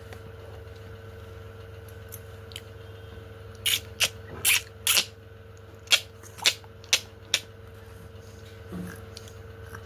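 About eight sharp clicks, irregularly spaced over roughly four seconds, starting a little under four seconds in, over a steady low hum.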